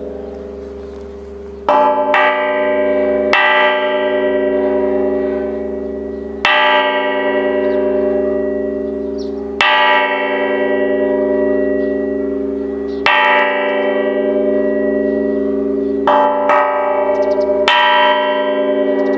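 Korean bronze Buddhist temple bell (beomjong) struck every few seconds, sometimes twice in quick succession. Each stroke rings on as a long, humming tone that overlaps the next.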